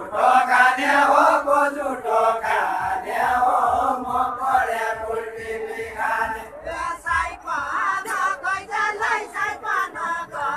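A group of voices singing a deuda folk song together in chorus, with long held lines.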